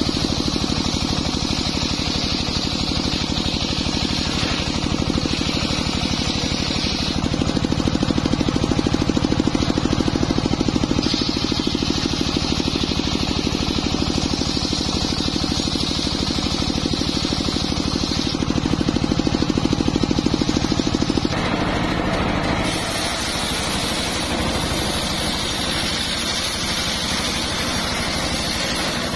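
Homemade circular sawmill ripping a log of jowar wood. The blade and its drive run steadily, with a rasping cutting sound that swells and fades in stretches of several seconds as the log is fed through. The tone of the machine changes about two-thirds of the way through.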